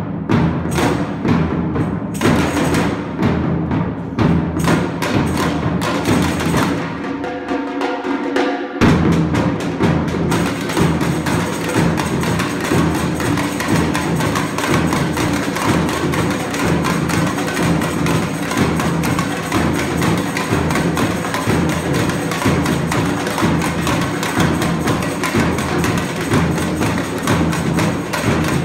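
Samba batucada drum ensemble playing: surdo bass drums pound a steady beat under snare and hand-drum patterns. About seven seconds in, the bass drums drop out for a couple of seconds, leaving lighter percussion with a few pitched notes, then the whole ensemble crashes back in together.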